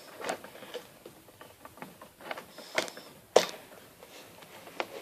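Plastic Lego Technic parts clicking and tapping as they are handled and pressed back together, with the sharpest click about three and a half seconds in.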